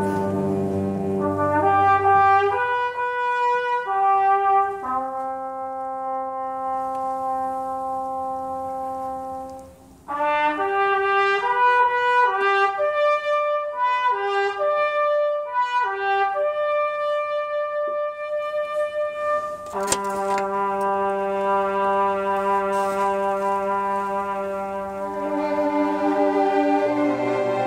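Orchestra playing, with a trumpet carrying the melody in long held notes. The music breaks off briefly about ten seconds in, resumes with a busier passage, and swells into a fuller sustained chord about two-thirds of the way through.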